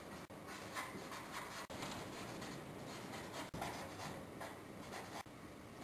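Dry-erase marker writing on a whiteboard: a faint run of short, uneven scratchy strokes as words are written line by line.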